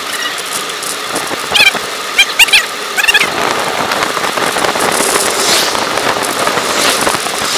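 Wind rushing over the microphone of a moving bicycle, with tyre noise on the road, louder in the second half. A few short, high chirps sound between about one and a half and three seconds in.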